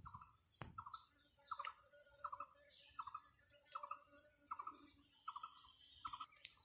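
A bird calling faintly and over and over, a short stuttered note about every three-quarters of a second, with a steady high-pitched hiss behind it.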